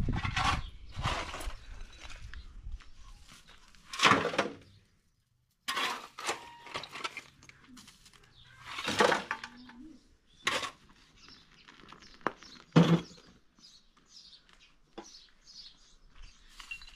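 Irregular bursts of scraping and sharp knocks from hand work on a wall, opening and plastering a doorway, with a few louder knocks and a second of dead silence about five seconds in. Faint bird chirps in the background in the later seconds.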